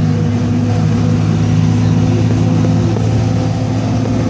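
Engine and road noise of a moving road vehicle heard from inside it: a steady low hum at constant pitch over a broad rushing noise.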